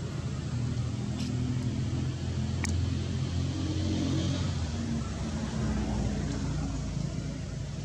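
Steady low rumble of a motor vehicle engine running, with two faint clicks about a second and two and a half seconds in.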